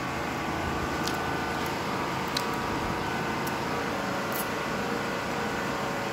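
A steady mechanical hum, made of several held tones over a noisy background, with a few faint clicks.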